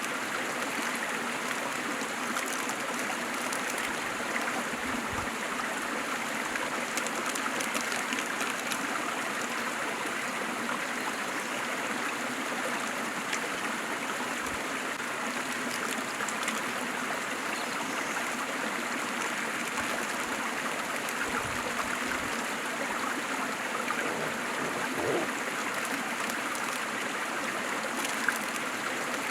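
Waterfall and stream: water falling and running in a steady, even rush with a light trickle.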